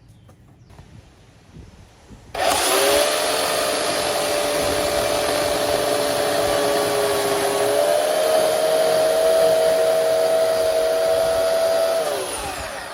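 A Bauer 14.5-amp corded electric chainsaw starts abruptly about two seconds in and runs at a steady whine for about ten seconds. Near the end it is switched off and winds down, its whine falling in pitch.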